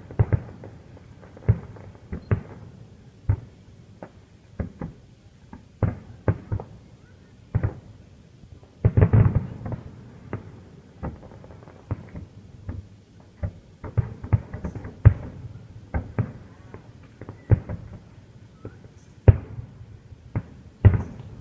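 Fireworks going off in an irregular string of sharp bangs and booms, some echoing, with a dense flurry of reports about nine seconds in.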